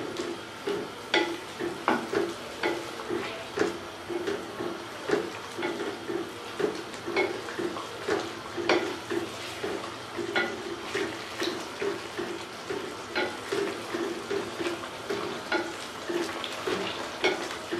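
Wooden spatula stirring and frying down chicken, potatoes and yogurt in an aluminium pot, knocking and scraping against the pot in a steady rhythm of about one and a half strokes a second, with the curry frying underneath. The yogurt is being fried until its water dries off.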